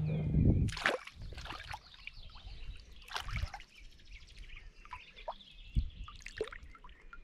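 Water splashing and trickling in short, irregular spurts, with birds chirping in the background. A music track ends in the first second.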